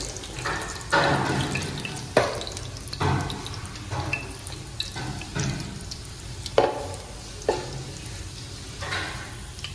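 Whole spice seeds sizzling in hot oil in an aluminium pressure cooker, with irregular sharp pops about once a second over a low steady hum.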